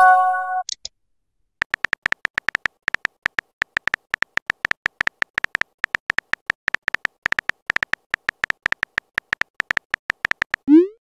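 Simulated phone keyboard typing from a texting-story app: a quick, uneven run of soft clicks as a message is typed out letter by letter. It opens with a short electronic chime as a message is sent, and near the end a short rising whoosh marks the next message being sent.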